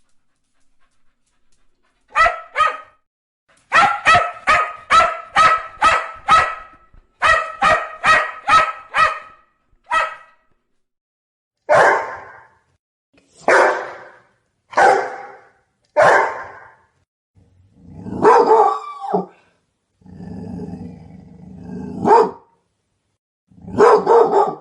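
A cocker spaniel barking in fast runs of short barks, about three a second. After a brief pause about ten seconds in, a rottweiler barks: single barks spaced more than a second apart, with a low rumble between barks near the end.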